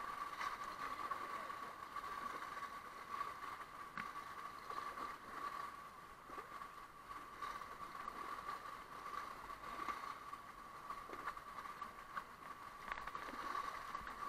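Kayak paddle strokes and river water rippling and gurgling around the hull, with small splashes and drips, over a steady whine.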